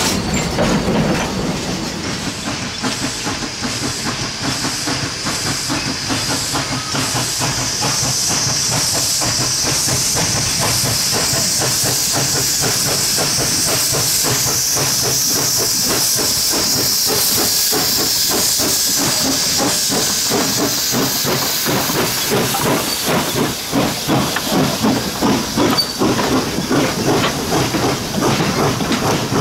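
Pennsylvania Railroad 643, an 0-6-0 steam locomotive, working with a loud steady hiss of steam. Near the end its train rolls past, wheels clicking rhythmically over the rail joints.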